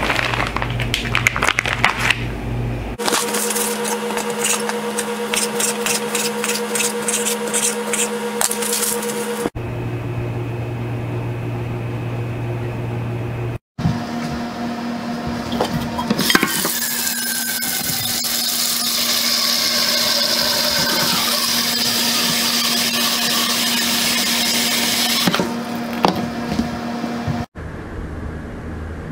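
Kitchen work sounds across several cuts: first a run of sharp knocks and handling on a wooden cutting board, then tap water running into a metal pot in the sink for about ten seconds.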